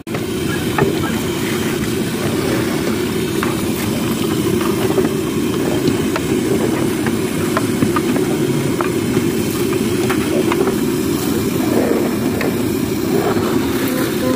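Green peas deep-frying in a large pot of hot oil: a steady, low-pitched hiss with scattered small pops and clicks as a perforated skimmer lifts the peas out.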